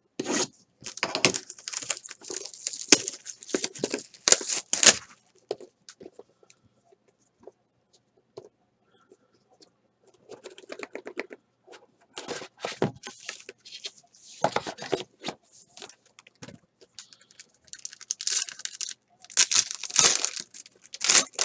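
Cardboard and wrapping on a box of Court Kings basketball cards being torn and crinkled open, then a foil card pack being crinkled. The sound comes in bursts of scratchy tearing: for the first few seconds, again about halfway through, and more near the end.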